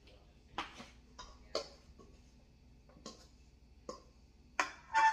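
Scattered clicks and knocks of dishes and utensils being handled on a kitchen counter, with a louder clank of a stainless steel mixing bowl near the end that rings briefly.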